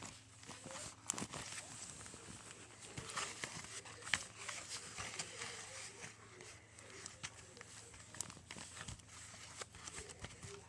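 Slime being squished and kneaded by hand, making irregular wet clicks and small pops.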